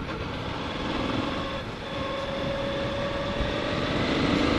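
Motorcycle engine running under way, with road and wind noise. It gets louder near the end as the bike picks up speed.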